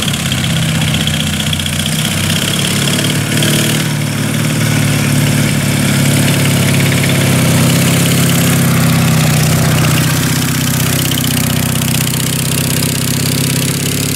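WWII-style military sidecar motorcycle engine running steadily at low revs as the outfit rolls slowly along.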